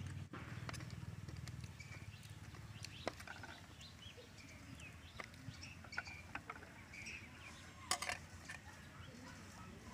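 Scattered light clicks and taps of chopsticks and a spoon against a metal tray during eating, the loudest about eight seconds in, with a few faint chirps in the background.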